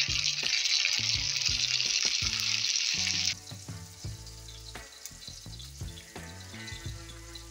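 Chopped tomatoes, onion and sausage sizzling in oil in a frying pan, loud for the first three seconds or so, then dropping suddenly to a faint sizzle. Background music plays underneath.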